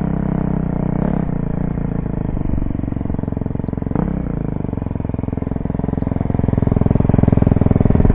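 Dirt bike engine running at low speed under light throttle, with two short knocks about a second and four seconds in; it picks up and gets louder over the last couple of seconds.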